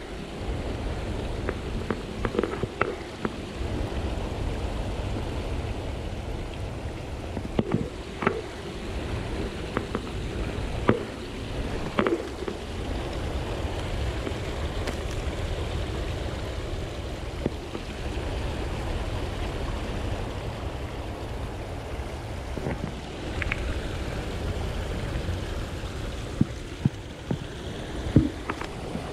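Steady low rush of running river water, with scattered sharp clicks and knocks from rod and rocks being handled.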